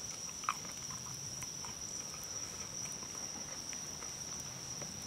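Steady, high-pitched night insect chorus of crickets, with faint scattered clicks of someone chewing fried plantain, one a little louder about half a second in.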